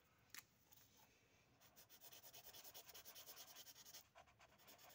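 Felt-tip marker colouring on paper: faint, quick back-and-forth scribbling strokes that start about two seconds in and stop about four seconds in.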